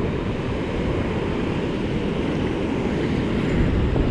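Steady rush of surf washing up over the sand, with wind buffeting the action camera's microphone.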